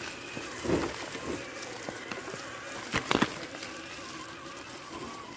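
Electric motor and geared drivetrain of an RC crawler whining steadily as it drives, with a knock about a second in and a quick pair of sharp knocks about three seconds in.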